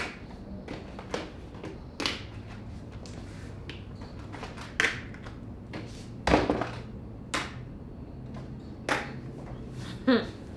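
Scattered taps, knocks and rustles of packaged pet food being handled and set down, with several louder knocks spread through, over a faint low steady hum.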